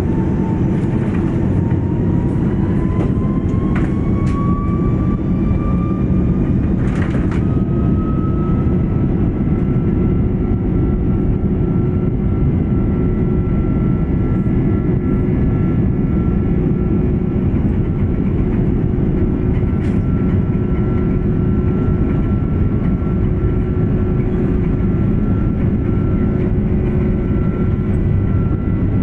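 Airbus A330-300's Rolls-Royce Trent 700 jet engines spooling up to takeoff thrust: a rising whine over the first several seconds that then holds steady over a loud, even rumble. There are a couple of brief clicks early on.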